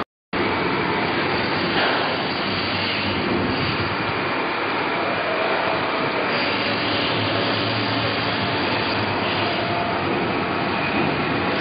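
Straight knife blade grinder running: a steady, even rushing machine noise from the grinding head, cut by a brief total silence just after the start.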